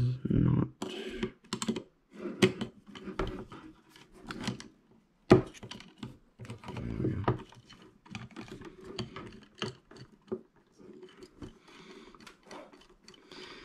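Phillips screwdriver backing out the screw that holds an airsoft gun's pistol grip to its gearbox: irregular small clicks and scrapes of the bit working the screw in the plastic grip, with one sharper click about five seconds in.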